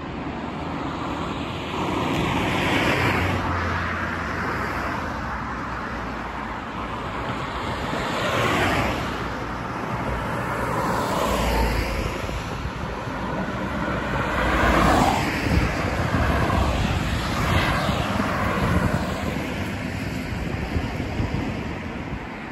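Street traffic: several vehicles pass close by one after another, each swelling and fading, over a steady background rumble.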